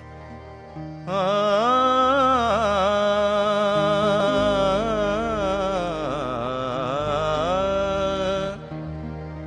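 Opening of a Punjabi Sufi kalam: a wordless, ornamented sung line with wavering pitch over a steady drone, entering about a second in and falling away near the end to leave the drone alone.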